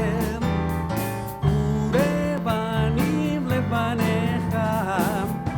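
A singer with instrumental accompaniment in the middle of a Hebrew worship song, holding a wavering melodic line between the lyric phrases over a steady band backing.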